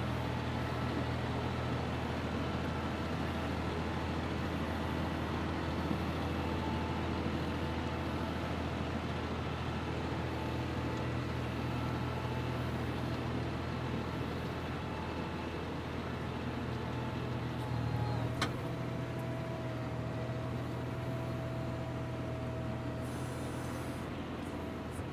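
John Deere 5075E tractor's three-cylinder diesel engine running steadily under load while the front loader works a pile of dirt. About 18 seconds in, a steady higher whine joins the engine and holds for several seconds.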